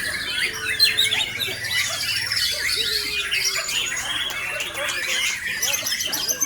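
White-rumped shama (murai batu) singing, a continuous rapid run of varied whistles, chirps and trills with no pause, the kind of full song played as a pancingan to rouse caged birds into singing.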